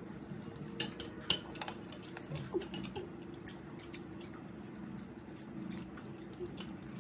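Light clinks and taps of dishes and cutlery at a table during a meal, a handful of scattered clicks mostly in the first few seconds, over a faint steady hum.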